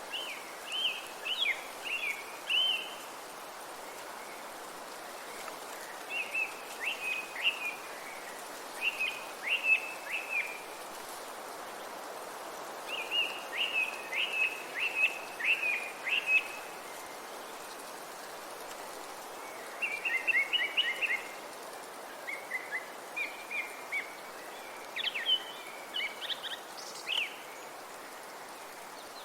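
A songbird singing short phrases of quick, chirping notes, about seven phrases with pauses of a few seconds between them, over a steady background hiss.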